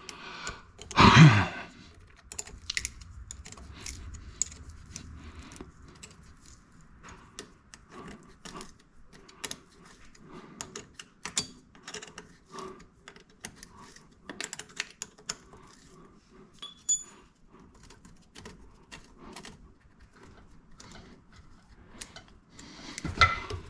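Irregular light metallic clicks and clinks of hand tools and fuel-line fittings being worked by hand, with a brief loud voice-like sound, such as a grunt of effort, about a second in.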